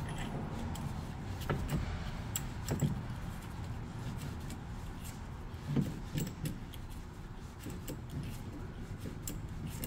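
Screw-type brake caliper piston compressor being wound in by hand to push back a rear caliper piston, with scattered metallic clicks and clinks from the tool and its handle and a few louder knocks.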